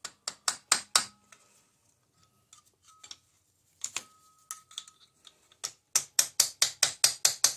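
Light metal taps driving the piston wrist pin through the piston and connecting rod of a Honda Rancher 350, using a screwdriver as a drift. There is a quick run of four taps, then scattered lighter taps, then a faster run of about ten near the end, some with a short ring.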